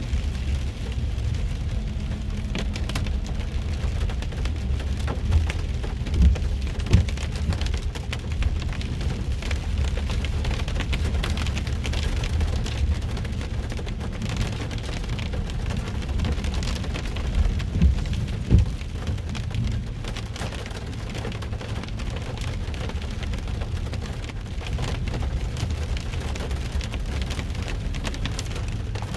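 Heavy rain pattering on a car's roof and windshield, over the steady low rumble of the moving car, with a few louder thumps.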